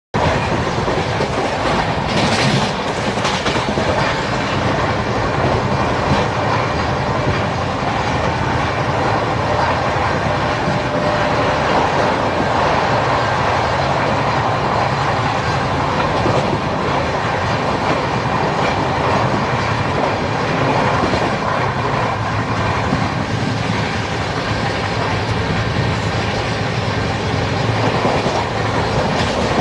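LHB passenger coaches running at high speed, heard close from the coach doorway: a steady, loud rolling roar of wheels on rail, with rapid clickety-clack over the rail joints.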